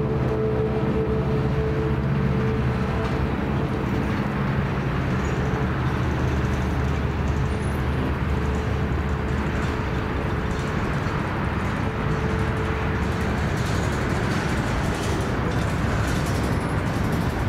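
Freight train's tank cars and covered hoppers rolling past, a steady rumble of steel wheels on the rails, with a low hum under it that fades out about two-thirds of the way through.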